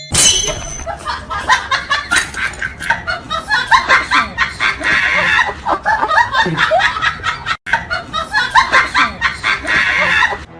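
Loud, choppy bursts of laughter that start abruptly and break off briefly about two-thirds of the way through.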